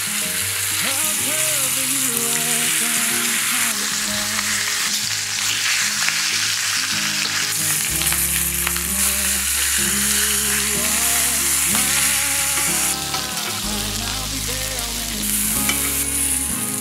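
Bone-in pork loin steak frying in a hot cast-iron grill pan over medium heat, a steady loud sizzle.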